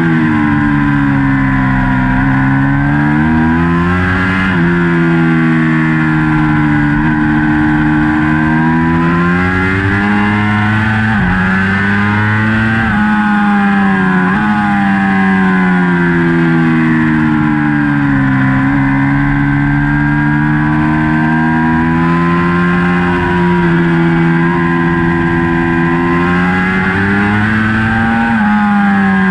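Onboard sound of a 2019 Ducati Panigale V4's V4 engine at racing speed, its pitch climbing under hard acceleration and dropping as it slows for corners, several times over, with a steady rush of air beneath it.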